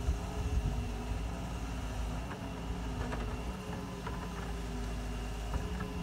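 Doosan excavator's diesel engine running steadily as it digs, with a few faint knocks.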